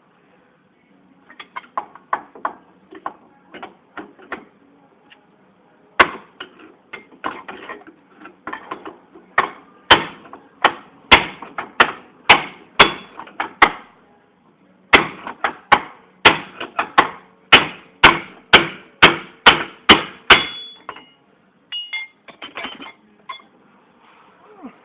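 Hammer blows on metal, struck in quick runs of about two to three a second with a short ring after the hardest ones, knocking out a seized rear wheel bearing and hub. Lighter strikes first, then heavier runs, with short pauses between them.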